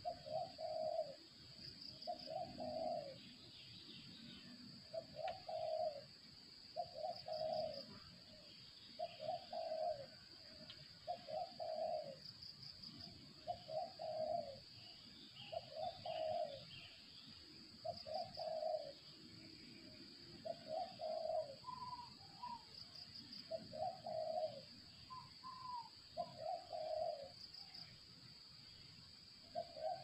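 Spotted dove (tekukur) cooing over and over in low phrases, one about every two seconds, with a few higher calls in between about two-thirds of the way through.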